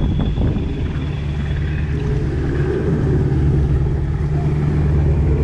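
An off-road vehicle engine running steadily with a low, even hum, with water noise close to the microphone.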